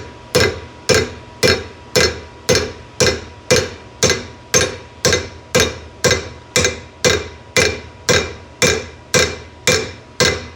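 Hammer tapping an oversized bushing into the drilled-out upper door-hinge bore: steady, even blows a little under two a second, each with a short ring. It is a really snug, tight fit.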